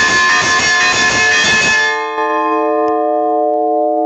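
Church bells struck rapidly by electric hammers, ringing the midday toll. The rapid ringing stops abruptly about halfway through, leaving the bell's tones ringing on steadily, with a single click about three-quarters of the way in.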